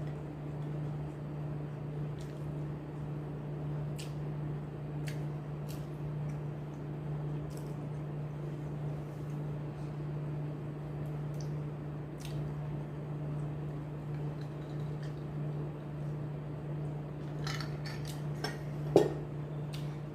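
Someone eating a meal: scattered light clicks of cutlery against a plate, with a cluster of clinks and one louder clink near the end, over a steady low hum.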